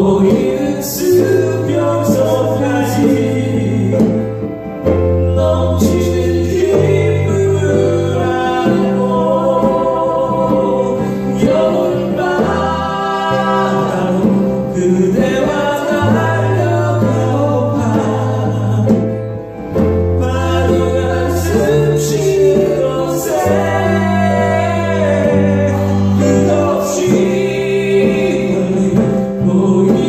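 Live band performing a song: singing over electric bass, acoustic guitar and a djembe, the bass holding long low notes.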